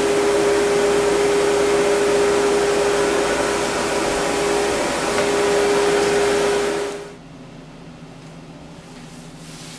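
Dog-grooming dryer blowing air steadily with a constant motor hum, stopping suddenly about seven seconds in; then only quiet room tone.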